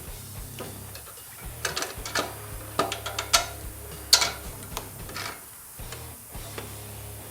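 Irregular metallic clicks and clinks of hand tools, sockets and bolts being handled during alternator work, with the sharpest knock about four seconds in.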